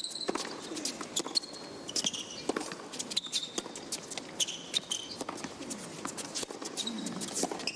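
Tennis rally on a hard court: racquets strike the ball back and forth in a run of sharp pops, with short sneaker squeaks on the court surface in between.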